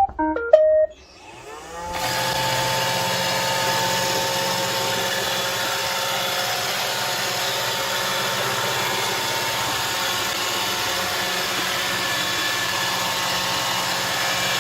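iRobot Roomba 692 robot vacuum playing a short tune of stepped beeps as it starts cleaning. About a second in, its vacuum motor and brushes spin up, then run steadily with a whine.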